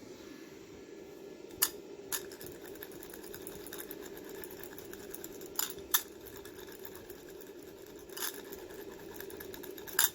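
About six sharp clicks and knocks at irregular intervals, with fine crackling between them, from hand tools working on carpet, over a steady low hum.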